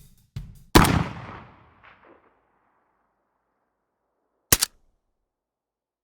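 Kalashnikov rifle shot: a sharp crack about a second in with a long echo tail fading over about a second and a half. A short double crack follows near the end without the long tail, with a short thump just before the first shot.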